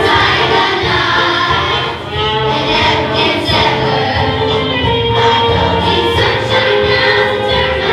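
A chorus of children singing together over an instrumental accompaniment: the cast of a school musical singing the finale.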